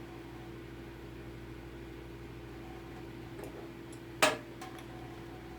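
A steady mechanical hum with one fixed tone, broken by a few light clicks and one sharp knock a little past four seconds in.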